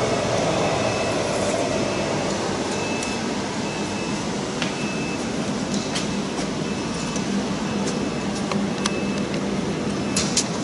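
Steady machinery hum of a factory floor, with a faint high tone coming and going and a few scattered clicks.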